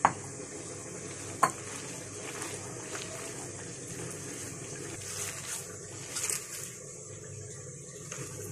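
A hand kneading raw chicken mince and crumbled bread together in a glass bowl: faint soft squishing over a steady background hiss, with two sharp clicks, one at the start and one about a second and a half in.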